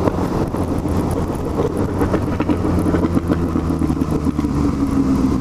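Yamaha MT-09's three-cylinder engine running at a steady cruising speed, over a haze of wind noise.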